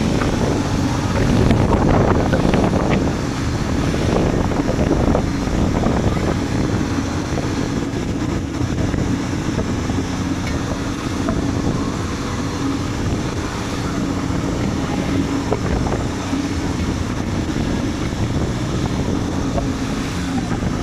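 Tow boat's motor running steadily under way, with wind buffeting the microphone.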